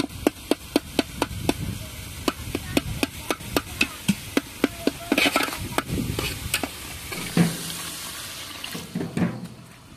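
A metal spatula scraping and clinking against a wok (kadai) in a fast, even rhythm as a curry's spice paste with chopped tomato is stirred and fried, over a low sizzle. The stirring stops about two-thirds of the way through.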